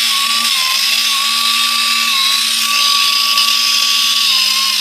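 Compressed-air rotary sander running steadily with a high whine over a hiss of air, sanding calluses off feet.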